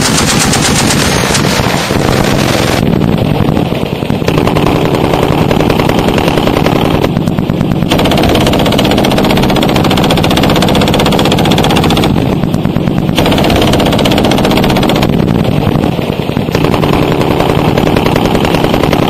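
Sustained automatic machine-gun fire, the shots coming so fast they run together in one unbroken stream. The tone of the fire shifts a few times, and it stops abruptly near the end.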